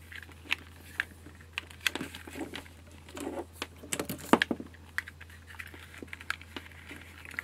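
Irregular light clicks, taps and rustles of a plastic sensor and its cable being handled on a wooden workbench, over a faint low steady hum.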